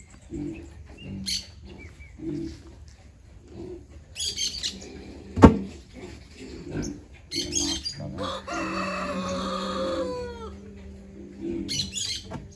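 A rooster crows once, a long call of about two seconds that falls in pitch at the end. Several shorter sounds come before and after it, and a single sharp knock a little before halfway is the loudest sound.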